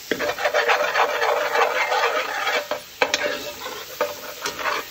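Metal spoon stirring and scraping chopped onion and bell pepper across the bottom of a large pot, with the vegetables sizzling; the scraping works loose the browned bits left from frying chicken. The strokes come in quick runs, with a short break about three seconds in.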